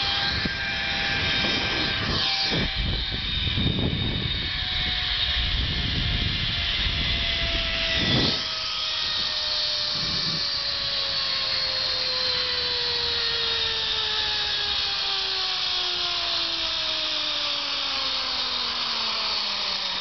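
Zipline trolley pulleys running along the steel cable: a steady whine whose pitch falls slowly as the rider loses speed. Wind rushes over the microphone in the first several seconds, and there is one knock about eight seconds in.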